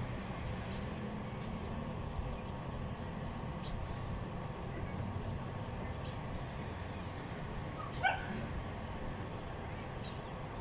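Outdoor background hum with faint high chirps repeating every second or so, and a single short dog yelp about eight seconds in.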